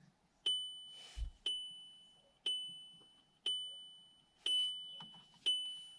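The van's electronic warning chime dinging about once a second, six dings in all, each a single high tone fading away, with the ignition switched on. A soft low knock sounds about a second in.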